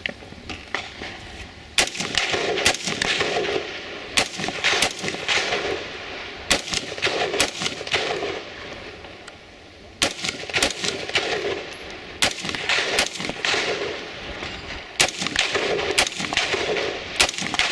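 AR-15-style semi-automatic rifle fired in a steady string of single shots, a little under one a second, each shot echoing. There is a brief pause of about a second and a half about halfway through, then the string carries on.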